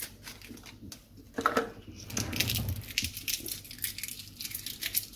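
Irregular crinkly rustling with many small clicks, like material being handled or crumpled, starting about two seconds in, after a brief murmur.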